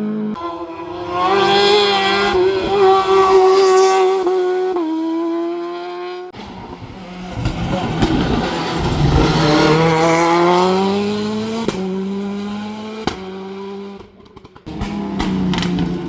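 Racing car engines at high revs, stepping up in pitch through several gear changes. About six seconds in the sound changes abruptly to another car whose engine note rises and then falls as it passes.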